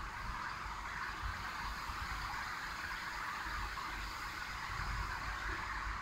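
Storm surf breaking over a seawall, with wind, heard from behind window glass as a steady rushing hiss over an uneven low rumble that swells about five seconds in.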